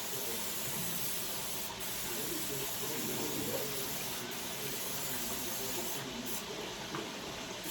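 A steady hissing noise that runs without a break, with a few brief dips in its highest part.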